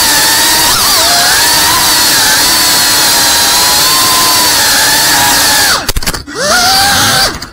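FPV quadcopter's motors and propellers whining at speed, the pitch wavering with the throttle. Near the end the whine dives and cuts out briefly, rises again, then cuts out once more.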